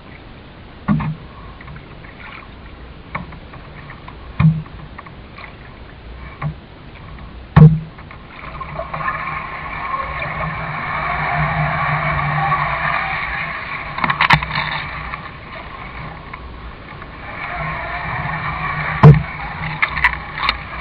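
Canoe under paddle, heard through a GoPro mounted on the boat: sharp knocks on the canoe every few seconds over a steady rush of water, which grows louder from about eight seconds in.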